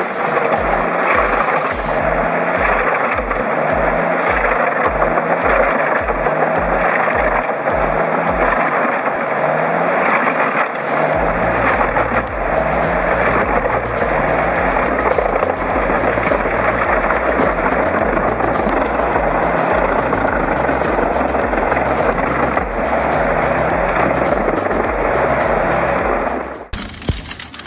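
Eschlböck Biber 84 wood chipper running, its engine and rotor chipping logs, under background music with a steady beat. The sound cuts off abruptly near the end.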